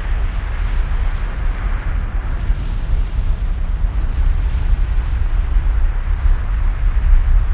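Kilauea lava eruption heard as a steady deep rumble under a rushing roar, with no separate bangs.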